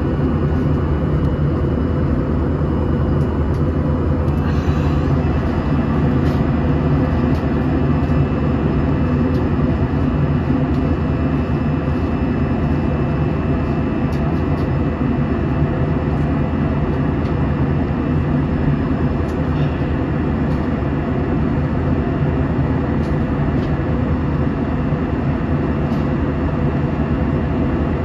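Steady jet engine and airflow noise inside an Airbus A320's cabin at a window seat in flight: a loud, even rumble with a few faint, steady whining tones above it.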